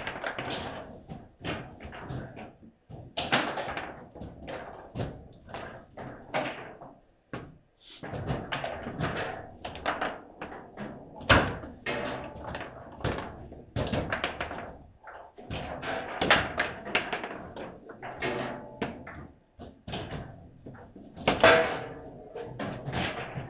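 Foosball table in fast play: the hard ball clacking off the plastic figures and table walls, and the steel rods banging against their stops, in an irregular run of sharp knocks. The loudest cracks come about 11 seconds in and near the end.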